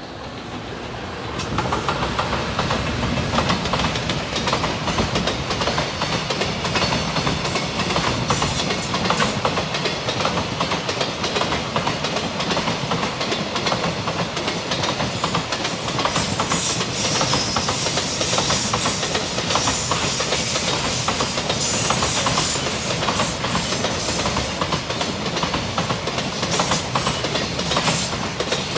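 A JR Freight container train hauled by an EF210 'Momotaro' electric locomotive passes close by, its container wagons' wheels clacking over the rail joints. It grows loud about a second and a half in, with a stretch of high hissing midway through.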